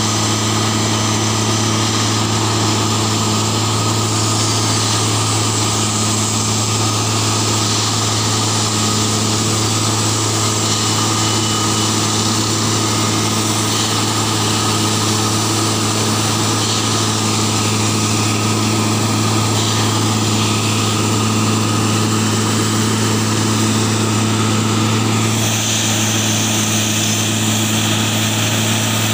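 Plasser & Theurer 09-32 CSM continuous-action tamping machine running while it tamps the track: a loud, steady low engine drone with a haze of mechanical noise over it. The sound turns brighter about 25 seconds in.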